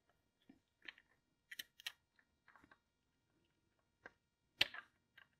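Faint, scattered small metal clicks and taps of the oil strainer spring and cover cap being handled and set against the motorcycle engine's crankcase by hand. They come irregularly, a few close together about one and a half to two seconds in, with the sharpest click about four and a half seconds in.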